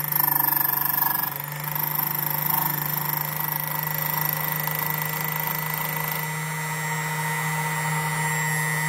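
Electric motor and cutter wheel of a Jensen Micro-Dial key code machine running steadily while the wheel cuts a notch into a B86 ignition key blank. The cutting is loudest in the first second, and a very high whine drops out about six seconds in.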